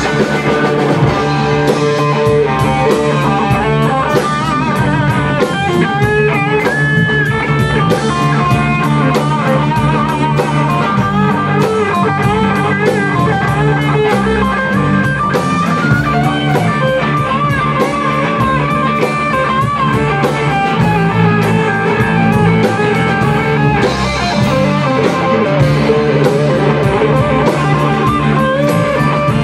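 Rock band playing live without vocals: two electric guitars, bass guitar and a drum kit. A lead guitar line with wavering, bent notes rides over the steady rhythm.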